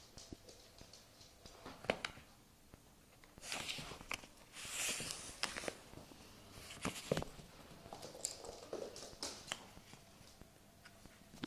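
A Prague ratter worrying a scrap of rubbish in its mouth: intermittent rustling bursts with sharp clicks and chewing sounds.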